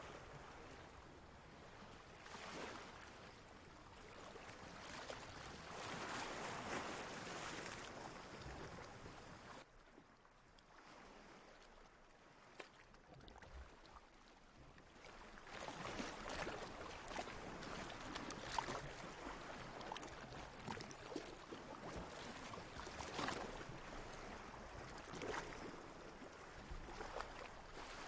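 Ocean water washing and sloshing in slow swells, with a quieter lull from about ten to fifteen seconds in.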